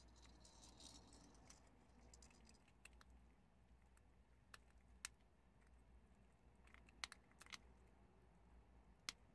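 Prairie dogs chewing dried chickpeas: faint, with a soft crackle in the first second and sharp crunching cracks scattered through the rest, several close together about seven seconds in.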